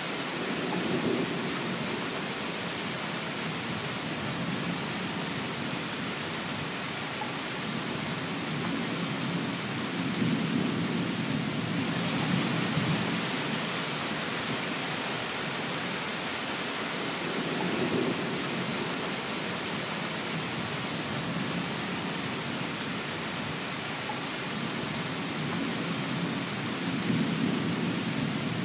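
Steady rain hissing without a break, with low rolling thunder rumbles swelling up and fading about four times.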